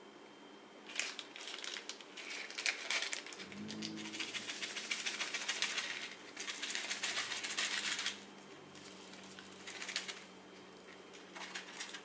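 Square resin diamond-painting drills rattling in a plastic drill tray and pouring off its spout into a zip bag: a dense patter of tiny clicks for several seconds, then a few stray clicks near the end.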